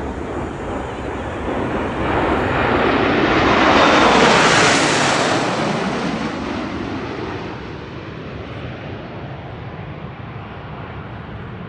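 A formation of nine small jet trainers, the Snowbirds' CT-114 Tutors, passing overhead. Their jet noise builds, is loudest about four seconds in, then fades away over the next few seconds.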